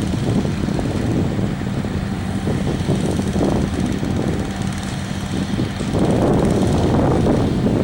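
Heavy engine running steadily on a concrete job site with a low hum and rumble, growing louder about six seconds in.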